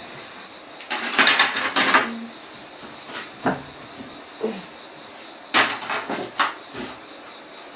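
Bowls and eating utensils clattering at a meal: two short bursts of quick knocks and clinks, about a second in and again past the middle, with a few single knocks between.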